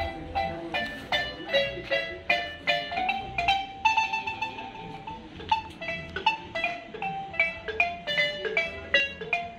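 A marimba with hormigo-wood keys played with two mallets: a melody of separate struck notes, two or three a second, with one note rolled and held for about a second partway through.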